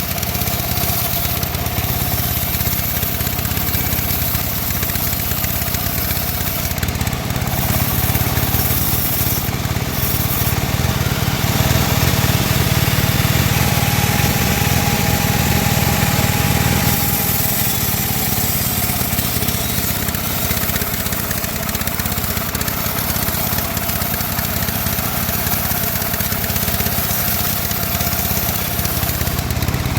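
Band saw running steadily as it cuts through timber. Its motor drone gets a little louder for a few seconds in the middle, with a faint steady whine.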